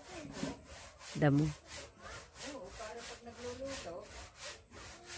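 Hand saw cutting through a wooden log, quick, even back-and-forth strokes, about four a second.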